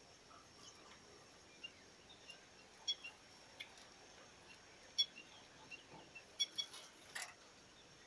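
Small aviary finches (gelatik belong) giving short, high chirps and clicks, scattered at irregular intervals, the loudest about five seconds in, with a small cluster near the end.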